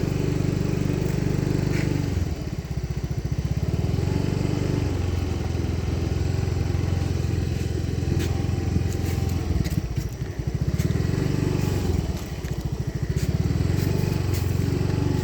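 Motor scooter engine running under way, its pitch easing off and picking up again a few times as the throttle is eased and opened. Scattered knocks and rattles come from riding a rough sand road.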